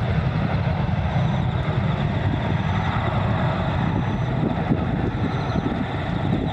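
Embraer 175 jet's twin GE CF34-8E turbofans at takeoff thrust, a steady low rumble as the airliner accelerates down the runway.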